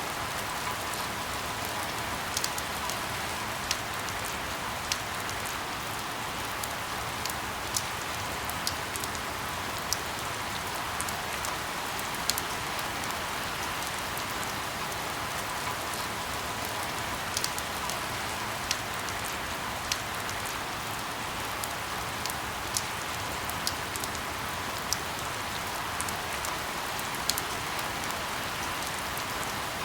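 Steady rain falling, an even hiss, with scattered sharp ticks about once a second.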